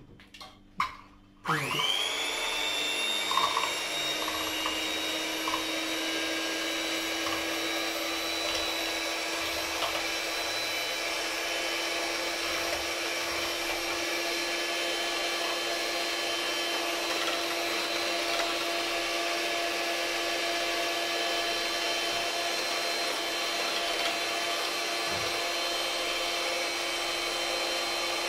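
Handheld electric mixer frothing warm milk in a narrow stainless-steel jug, standing in for an espresso machine's steam wand. After a few light knocks, the motor spins up about a second and a half in and runs steadily at one speed.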